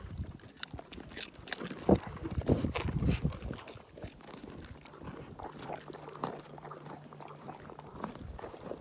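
Alpacas crunching carrots right against the microphone: crisp, irregular crackling bites, with heavy bumps as muzzles knock the phone, loudest in the first half.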